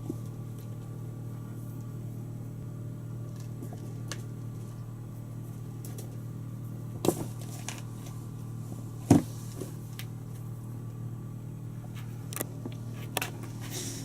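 Kittens playing and pouncing: a few sharp thumps and light taps of paws and bodies landing, the loudest about nine seconds in, over a steady low room hum.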